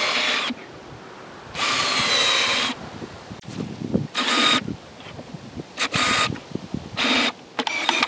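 Cordless drill boring holes into a wooden log slab, running in five or six short bursts of whine with brief pauses and small knocks of handling between them; the longest burst lasts about a second.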